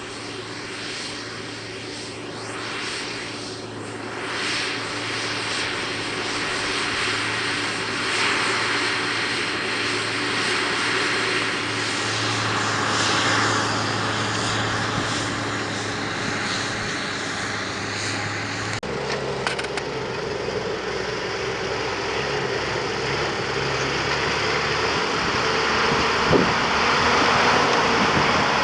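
Claas Atles 936 tractor engine running steadily while pulling a plough, with a droning note that grows louder. About two-thirds of the way through the engine note changes abruptly to a lower pitch.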